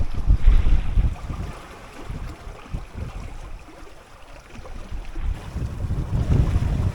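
Wind buffeting the microphone over the rush of waves and water along a small sailboat's hull. It is loud at the start, eases for a few seconds in the middle, and builds again near the end.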